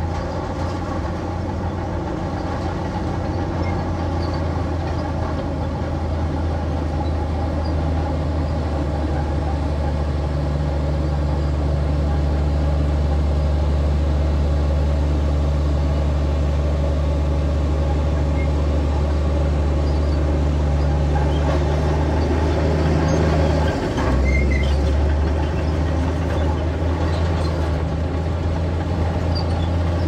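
Bulldozer's diesel engine running steadily under load, its deep drone growing a little louder about a third of the way in and dipping briefly about four-fifths of the way in.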